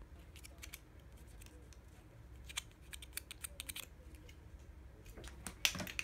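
Quick, light clicks and taps of a long-haired cat's claws and paws on a wooden floor, coming in clusters as it moves about and paws at a small toy ball, with the loudest tap near the end.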